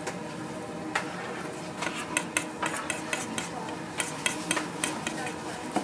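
Frying at a street-food stall: a steady sizzle of hot oil with frequent clinks and taps of metal utensils, coming more often from about two seconds in.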